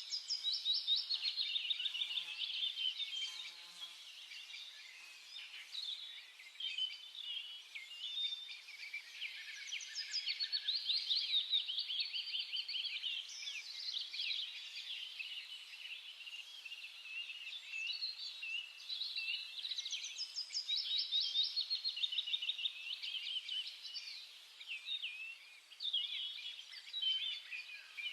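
A group of small birds chirping, with many short overlapping chirps and trills throughout.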